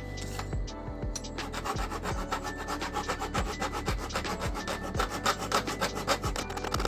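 Hand sanding: rapid back-and-forth scraping strokes against a part, quickening and growing louder after about a second and a half. A steady music track plays underneath.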